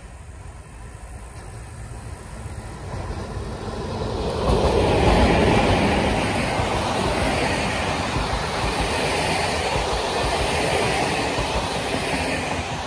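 A train approaching and passing close by, growing louder until about four and a half seconds in, then a steady loud rush of the train going past.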